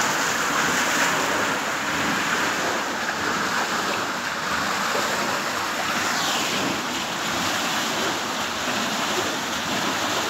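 Steady rush of water churning through a narrow mill race under a small steel paddle waterwheel as it turns.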